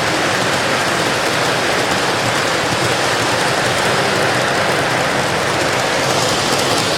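Model train running on a layout's track: a steady, even rolling rumble and hiss of wheels on rail.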